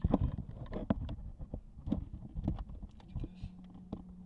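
Camera handling noise: irregular soft knocks and rustling as the camera is moved around against fabric, with a faint steady low hum near the end.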